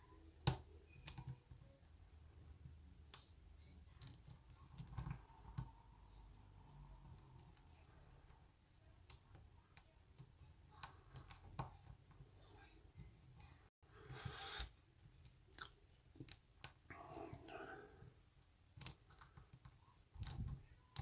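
Faint, scattered small clicks and light scraping from a pick working inside a Bi-lock padlock, with a few sharper ticks standing out.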